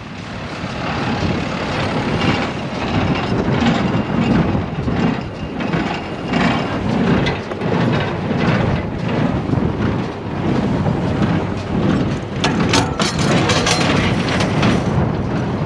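Case IH large square baler and its tractor running, a steady mechanical clatter, with a short cluster of sharp knocks near the end.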